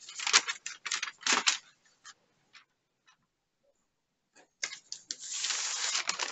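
Paper and cloth being handled on a desk: a few short rustles and taps in the first second and a half, a pause, then a longer rustle of paper sheets being moved near the end.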